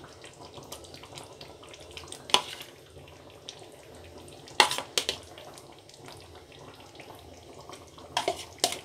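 Metal spoon scraping and clinking against a bowl a few times as fresh cream is spooned and dropped onto a curry in a pan, over a quiet steady background.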